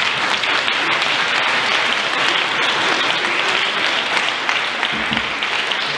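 Audience applauding in a large hall: dense, steady clapping from many hands.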